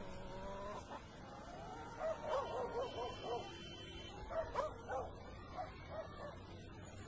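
A dog whining, then a run of short, high yelps from about two seconds in, several a second.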